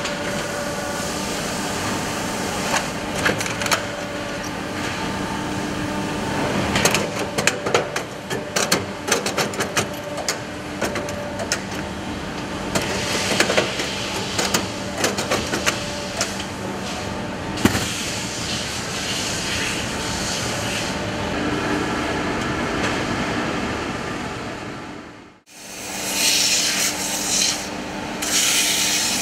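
Shoemaking machines running with a steady hum, with a stretch of rapid clicking and clatter from the lasting machinery. The sound drops out briefly near the end, then a sanding machine grinds against a shoe with a loud, hissing rub.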